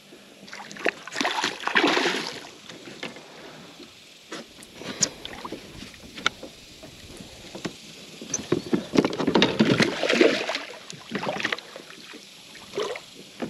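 Hooked bass splashing and thrashing at the surface beside a kayak, in two main bursts, about a second in and again from about eight and a half seconds, with scattered small clicks and knocks in between.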